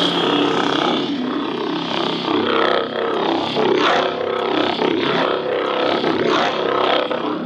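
Toy lightsaber's electronic hum and swing sound effects, played loudly through its built-in speaker: a dense buzzing tone with repeated quick swishes from a few seconds in.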